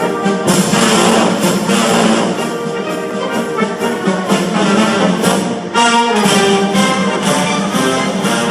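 Orchestral music with prominent brass, trombone and trumpet, playing loudly.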